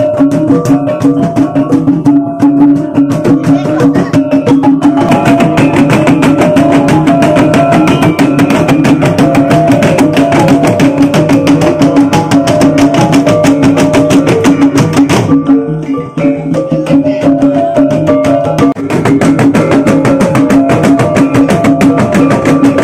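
Bajau bertitik ensemble playing loudly: several gendang drums beaten by hand in a fast, dense rhythm over steadily ringing hanging gongs and a kulintangan gong-row. The playing dips briefly about two-thirds of the way through, then carries on.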